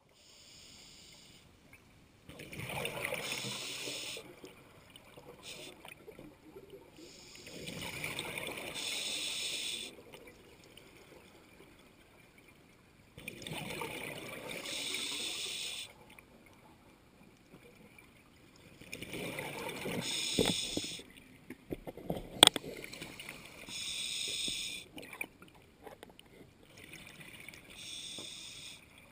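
A scuba diver breathing underwater: bursts of exhaled bubbles from the regulator, each two to three seconds long, about every five to six seconds. A single sharp click comes about 22 seconds in.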